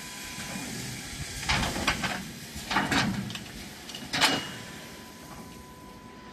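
Automatic pneumatic pallet block nailing machine cycling: a run of sharp mechanical clacks and air bursts in three clusters, the loudest about four seconds in, over a faint steady high whine.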